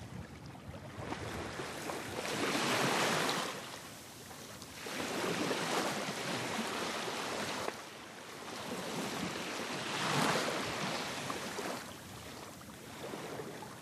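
Small waves washing and splashing in three swells about four seconds apart.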